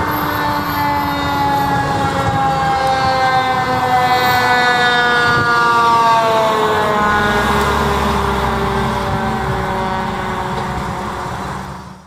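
Fire engine on an emergency response, its siren sounding and falling slowly in pitch over several seconds. The truck's engine and tyre rumble grows heavy as it drives past about halfway through, then the sound fades away near the end.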